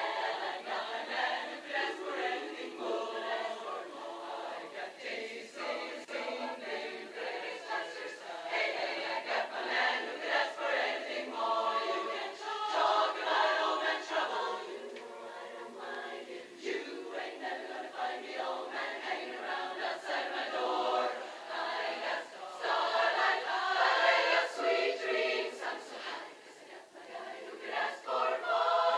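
Women's barbershop chorus singing a cappella in close harmony, in sustained phrases with a brief drop in level about 26 seconds in.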